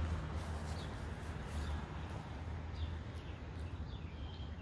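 Outdoor ambience: a steady low rumble under a soft even hiss, with faint, scattered bird chirps and a short high whistled note near the end.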